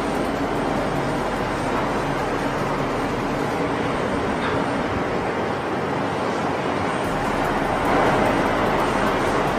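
Steady roar of the Boeing 777X's twin GE9X turbofan jet engines during departure, getting louder about eight seconds in.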